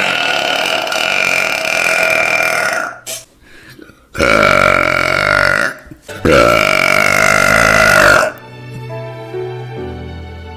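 Three long, loud burps: the first lasts about three seconds and the other two about two seconds each, the last two sagging in pitch as they end. Soft background music with single held notes follows in the last couple of seconds.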